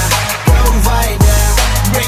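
Background music with a heavy electronic beat: deep bass hits that drop sharply in pitch, twice, over a sustained bass line.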